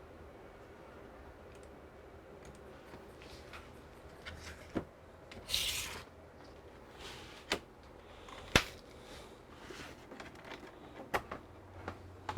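Handling sounds: a few scattered sharp clicks and knocks, the loudest a little past the middle, and a brief rustle about five and a half seconds in.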